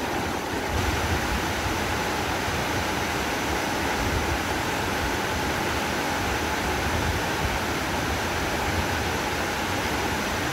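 Steady rush of water pouring down Nyahururu (Thomson's) Falls, an even noise with no breaks.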